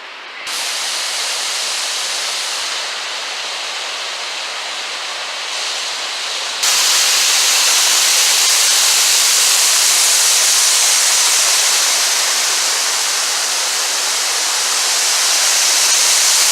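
Waterfall rushing: a steady roar of falling water that jumps abruptly louder about six and a half seconds in.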